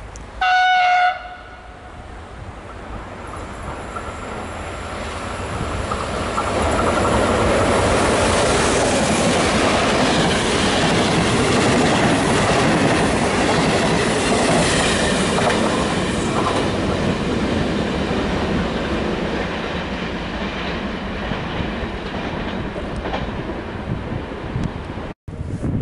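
A passenger train led by two electric locomotives, an E464 and an E656, gives one short horn blast, then passes through the station. The rumble of the locomotives and coaches builds, stays loud for several seconds and fades as the last coaches go by.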